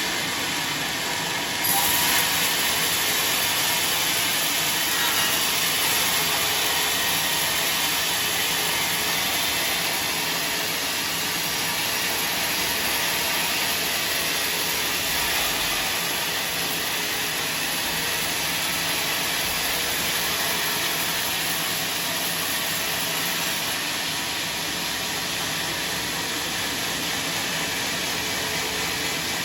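Sawmill saw running steadily, a loud even noise heavy in the upper range that steps up in level about two seconds in.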